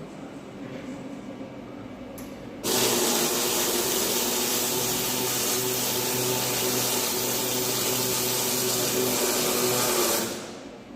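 Electric welding arc on a steel chassis frame, a continuous hissing, crackling weld run that starts abruptly about two and a half seconds in, holds steady for about seven seconds and dies away near the end.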